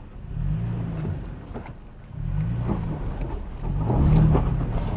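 2022 Toyota Tacoma Trail Edition's V6 revving in three surges as the truck crawls up a rocky slope in 4-low, with the last surge about four seconds in the loudest. Stones crunch under the tyres, and a rear wheel spins in the loose dirt without the rear locker engaged.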